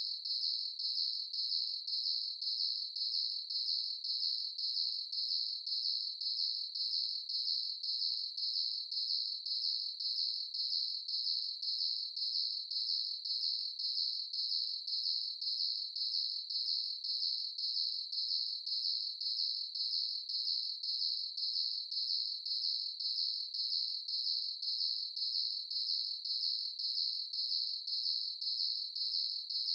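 Crickets chirping at night: one high, shrill trill that pulses at an even, steady rate without a break.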